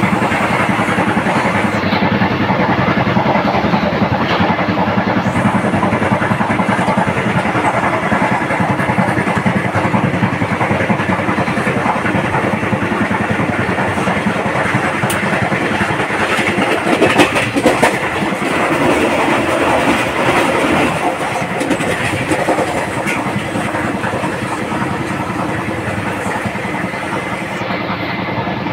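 Indian Railways express train running at speed, heard from aboard the coach: a steady noise of the wheels on the rails and the coach rattling, with two louder knocks about seventeen seconds in.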